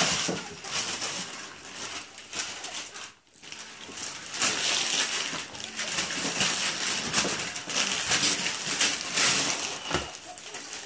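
Wrapping paper being torn and crinkled off a gift box by small hands, a run of rustling, ripping scrapes, with a short pause about three seconds in.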